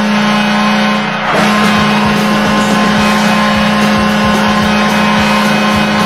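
Washington Capitals arena goal horn blowing: one steady pitched blast, a short break about a second in, then a long unbroken blast.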